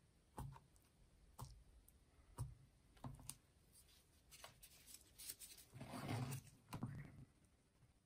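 Faint taps and sticky scrapes of a wooden spatula stirring marshmallow fluff in its jar, a few separate knocks in the first few seconds, then a longer rustling handling noise about six seconds in as the jar is handled.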